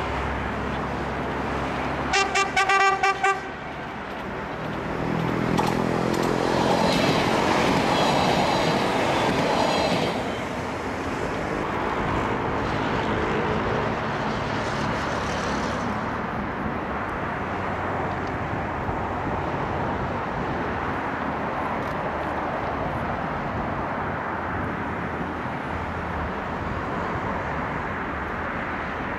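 A passenger train's horn sounds in a quick run of short toots about two seconds in. The train then passes with a rising rumble and clatter of wheels on the rails, which fades after several seconds. A steady hum of road traffic follows.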